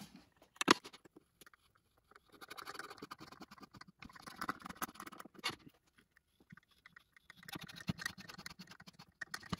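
Hand tap in a T-handle tap wrench cutting 1/4-28 threads in a phenolic router insert plate: quiet, intermittent scratching as the tap is turned, in several short spells. A sharp click sounds under a second in.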